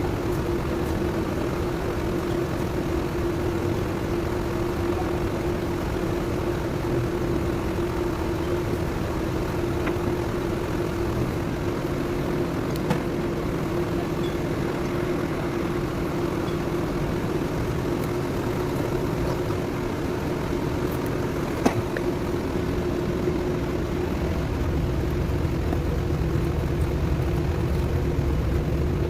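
An engine running steadily at a constant speed, with a steady hum over a low rumble. Two sharp metallic knocks stand out briefly.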